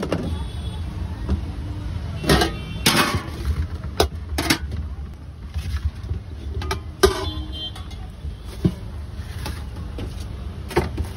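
Steady low rumble of street traffic, with several sharp clinks from steel plates and bowls being handled, two of them ringing briefly.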